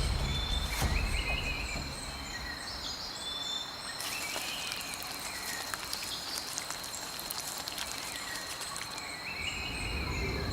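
Tropical rainforest ambience: a steady high insect drone, with short repeated chirping calls from insects or frogs and scattered faint clicks.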